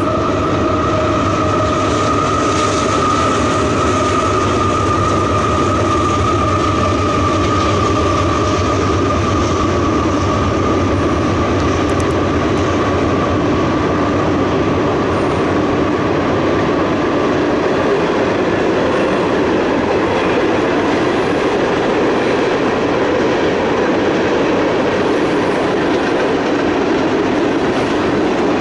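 Freight train of tank cars rolling past: steady rumble of steel wheels on rail, with a steady high wheel squeal that fades out a little past halfway.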